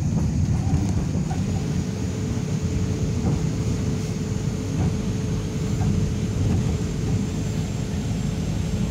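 Tram running along the line, heard from inside the car: a steady low rumble of wheels on rail with a few light knocks. A steady hum comes in about a second and a half in and fades out near the end.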